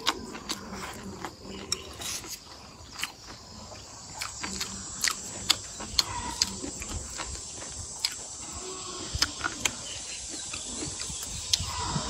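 Close-up eating sounds of rice noodles, fried egg and green chili peppers being chewed and slurped: irregular wet smacks and clicks, several a second.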